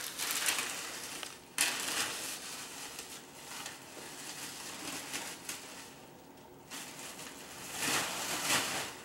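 A crinkly gift bag and its wrapping rustling and crinkling as a child pulls and rummages at it, in several louder surges.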